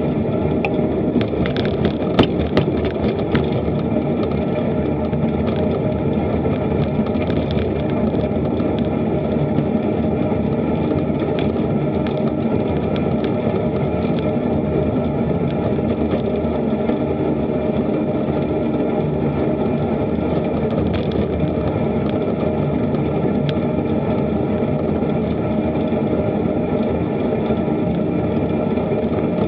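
Steady rumble and rattle of a bicycle ride picked up by a bike-mounted action camera: tyre and wind noise with the mount shaking. A few sharp knocks come in the first three seconds as the bike rolls over bumps in the path.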